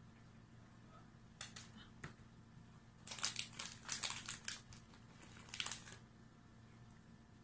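Cat crunching and chewing a dry Sheba cat treat: a few crunches about a second and a half in, then a dense run of crunches lasting about three seconds.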